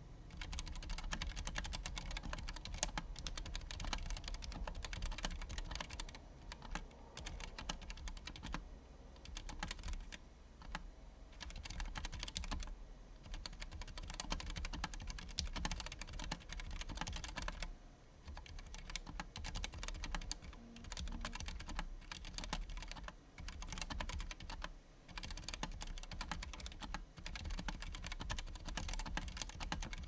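Fast touch-typing on a custom KBD75 mechanical keyboard with Gateron Clear linear switches, PBT keycaps and a bent steel case: a quick, dense run of keystrokes at about 76 words a minute. The typing starts right at the beginning and breaks off in short pauses every few seconds.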